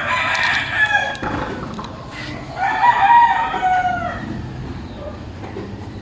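Rooster crowing twice: a call about a second long right at the start, then a longer one from about two and a half seconds in, each ending in a falling tail.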